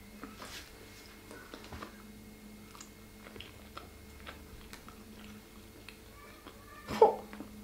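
A person chewing a mouthful of hot dog in a soft bun: faint, wet mouth clicks and smacks throughout. Near the end comes one short, loud vocal sound with the mouth full.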